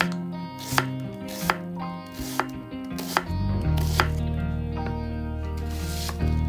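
Knife chopping on a cutting board in separate single strokes, about one a second, over background music.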